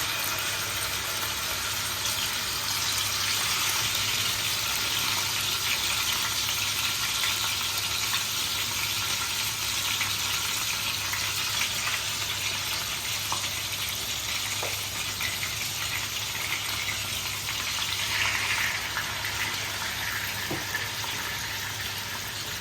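Marinated chicken pieces sizzling in hot mustard oil in a frying pan, a steady hiss that eases off gradually. A faint low hum runs underneath.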